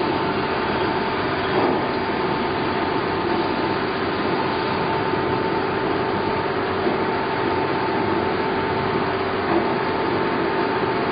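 Straight knife blade grinder running, its motor-driven cup grinding wheel grinding along a long straight blade as the head travels down it: a steady mechanical noise with a steady hum and a steady whine.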